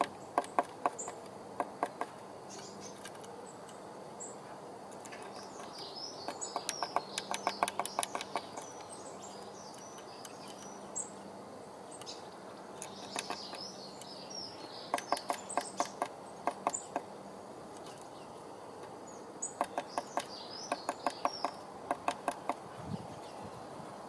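Blue tit pecking at the rim of a wooden nest box's entrance hole: spells of rapid sharp taps, several a second, that come and go a few times, with high bird chirps over some of them.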